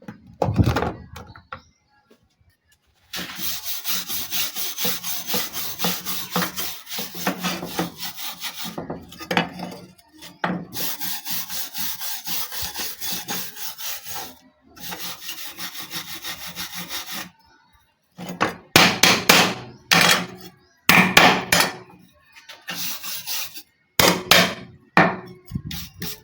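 Rusty knife blade being rubbed by hand for rust removal: quick back-and-forth abrasive strokes, about two or three a second, broken by short pauses, then a run of shorter, louder strokes in the last eight seconds.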